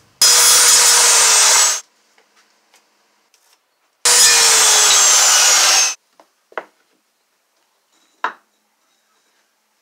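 Corded Porter-Cable circular saw cutting through 2x2 pine lumber twice, each cut about two seconds long, with a whine that falls slightly as the blade works through the wood. Two short knocks follow.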